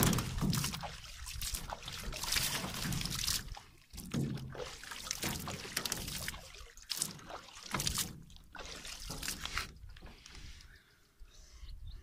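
Water pouring and dribbling off a wire-mesh fish trap as it is lifted and swung back into the water, in irregular splashing bursts that ease off about ten seconds in.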